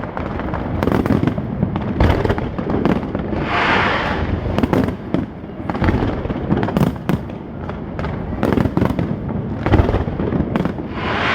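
Fireworks going off in a dense run of bangs and pops, with a short hissing crackle about four seconds in and again near the end.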